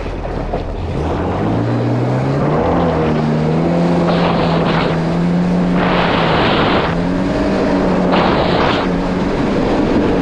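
2019 Yamaha GP1800R SVHO jet ski's supercharged four-cylinder engine speeding up. Its pitch climbs over the first couple of seconds, then holds steady at cruising speed, easing briefly about seven seconds in before picking up again. Several short hissing rushes sound over the engine.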